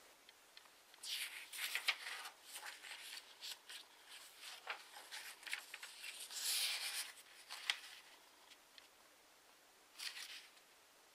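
A square sheet of origami paper rustling and crinkling as hands handle it and fold it in half, in irregular bursts with a pause near the end before another short rustle.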